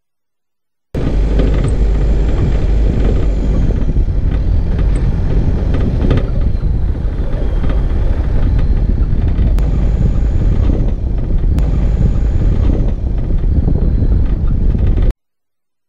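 Isuzu D-Max 4WD driving along a rough dirt track: steady loud road noise of engine, tyres on gravel and wind, heavy in the low end. It starts abruptly about a second in and cuts off suddenly near the end.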